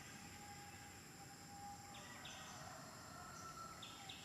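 Faint outdoor background of insects buzzing in short repeated bursts, with a thin steady tone running under them.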